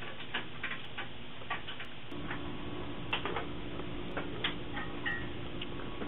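Irregular light clicks and taps of parts being handled and fitted inside a Shuttle SA76G2 small-form-factor computer case. About two seconds in, a steady low hum starts and keeps going under the clicks.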